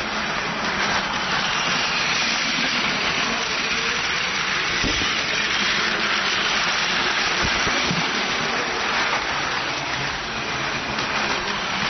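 Battery-powered Plarail Tohoku Shinkansen toy train running on plastic track: a steady whir of its small gear motor and the rattle of its wheels, with a couple of brief low thumps partway through.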